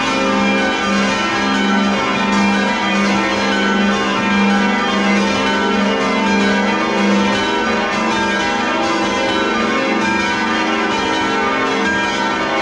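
Church bells of a light ring being rung full circle in change ringing, heard close from inside the belfry: a continuous, even stream of strikes, each bell ringing on into the next.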